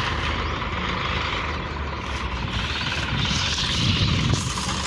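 Tractor diesel engine running steadily under load as it pulls a stuck combine harvester.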